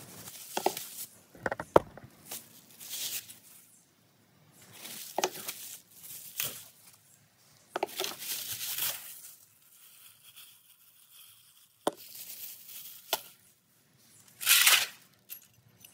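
Plastic bags crinkling and tearing, on and off, as two new coil-spring shock absorbers are unwrapped by hand, with a couple of sharp clicks in between.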